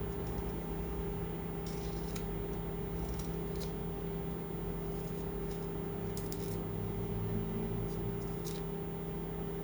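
A knife cutting the peel and pith off a lemon in a few short scraping strokes, over a steady low hum.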